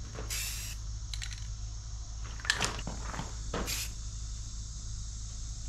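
Aerosol spray paint can hissing in short bursts, about four of them, as black paint is sprayed onto a steel excavator panel, with a few light clicks in between.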